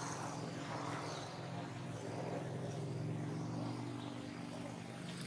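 A motor vehicle's engine running with a steady low hum, a little louder in the middle, with faint high chirps near the start.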